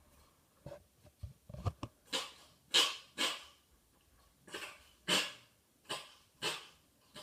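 A cat sneezing repeatedly: about seven short, sharp, hissy sneezes over several seconds, some in quick pairs, after a few soft bumps.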